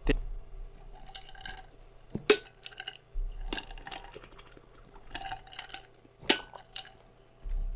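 A person drinking from a tumbler: liquid sounds and swallowing, with three sharp clinks of the cup, near the start, a little past 2 seconds, and a little past 6 seconds.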